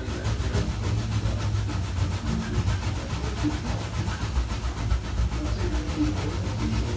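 Water running steadily from a bathroom tap into the basin: an even rushing with an uneven low rumble.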